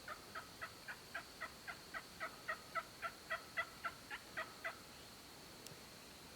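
A long run of about eighteen turkey yelps, evenly spaced at nearly four a second, growing louder toward the middle, then easing off and stopping a little before the end.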